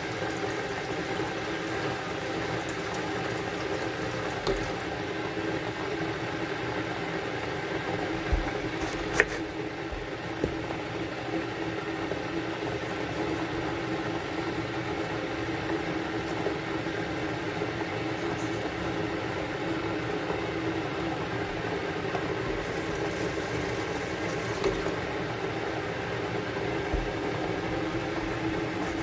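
Steady kitchen noise: food sizzling in a frying pan over the even hum of a fan, with a few faint clicks and light knocks.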